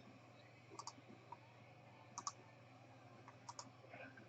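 Faint computer mouse clicks: three quick double-clicks about a second and a half apart, over near-silent room tone.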